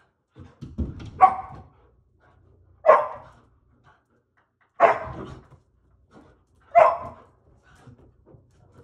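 Poodle barking four times, about two seconds apart, impatient to be let out through the door. A few low thumps come just before the first bark.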